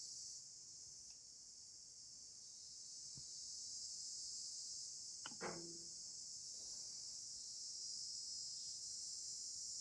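Steady high-pitched chorus of insects such as crickets, with a brief sharp knock about five seconds in.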